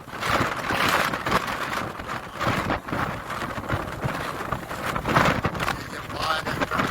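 Strong wind buffeting the microphone in irregular gusts, a loud rushing noise that swells and drops every second or so.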